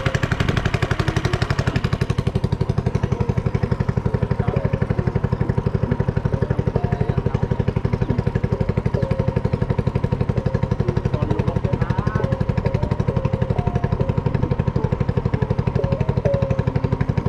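A small engine running steadily at an even speed, its rapid firing pulses regular throughout.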